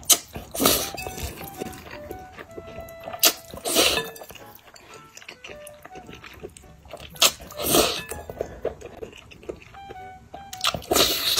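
Loud slurping of malatang noodles sucked up from chopsticks: about four pairs of slurps, a short one then a longer one, every three to four seconds, over soft background music.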